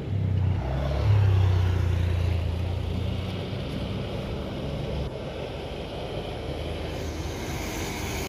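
Truck engine running close by, a low drone loudest about a second in that gradually eases off.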